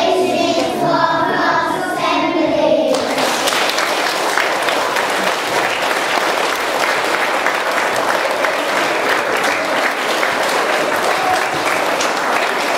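A children's choir sings the held final notes of a song, which end about three seconds in; then an audience applauds steadily.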